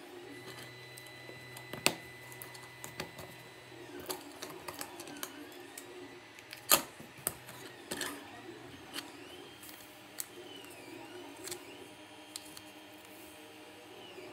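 3D-printed plastic parts being handled and pressed together: scattered light clicks and taps of plastic on plastic and on the desk, with a sharper click about two seconds in and a cluster of clicks around the middle.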